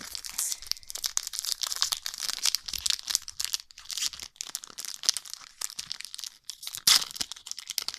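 Foil wrapper of a Pokémon trading card booster pack being torn open and crinkled, a continuous irregular crackling with a louder snap near the end.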